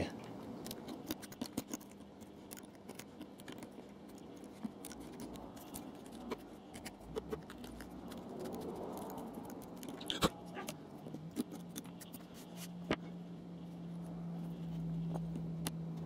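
Scattered small clicks, taps and scrapes as a craft knife cuts and picks cork underlay out from under model railway track, with one sharper click about ten seconds in. A low steady hum runs underneath and grows a little louder near the end.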